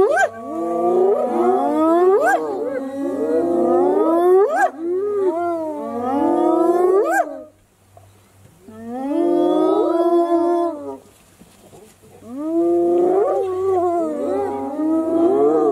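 A group of spotted hyenas calling over one another in wavering, gliding whoops and wails, with several sharp rising cries. The chorus breaks off twice, briefly, about halfway through and again a few seconds later.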